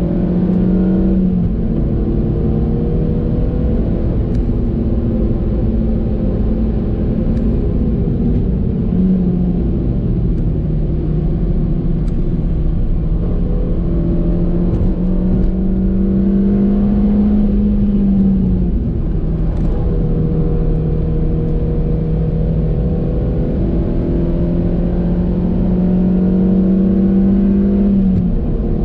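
2014 Suzuki Swift Sport's 1.6-litre four-cylinder engine pulling hard under throttle through long climbs in pitch, with sudden drops in engine speed about a second in, around nine seconds, around nineteen seconds and near the end. Tyre and road noise sits steadily underneath.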